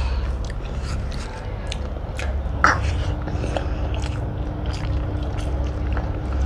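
Close-up eating sounds of rice and omelette curry eaten by hand: chewing and small mouth clicks and smacks, with one sharper, louder click about two and a half seconds in, over a steady low hum.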